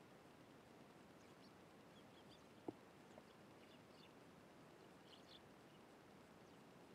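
Faint high chirps of Eurasian tree sparrows, coming in a few short clusters over a steady faint hiss. A single sharp tap sounds a little before halfway.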